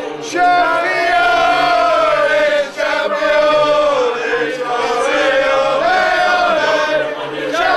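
A crowd of men singing a football chant together in long, drawn-out notes, with a brief pause for breath a little under three seconds in.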